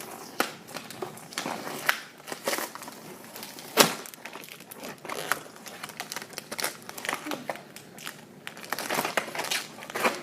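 Packing tape being peeled off a cardboard toy box, with irregular crinkling and crackling of the packaging and a sharp snap a little under four seconds in.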